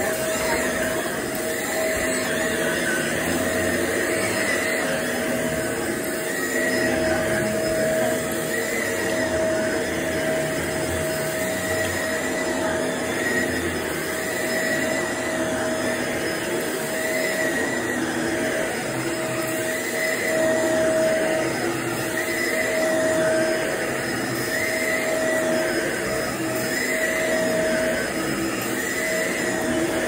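Shark upright vacuum cleaner running steadily while it is pushed over carpet, its motor holding one steady whine.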